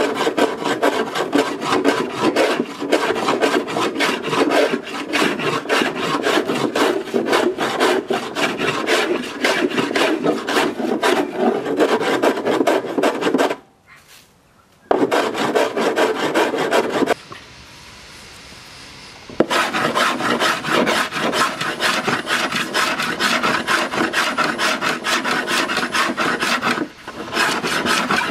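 Small hand block plane shaving the plywood and pine rail of a hollow wooden surfboard in rapid, short scraping strokes, stopping briefly about halfway through before starting again.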